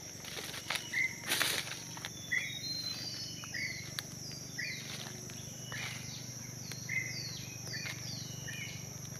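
Tropical forest ambience: a steady high drone of insects, with repeated short whistled animal calls, about one a second, many of them quick falling notes. Footsteps rustle through dry leaf litter, loudest about one and a half seconds in.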